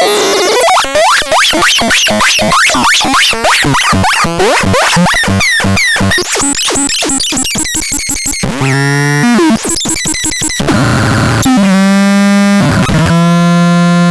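Synthesizer played as a sound demo: a fast run of short notes that sweep in pitch, several a second, for about eight seconds. Then come held buzzy tones that step in pitch, a brief noisy stretch, and a steady low tone with many overtones near the end.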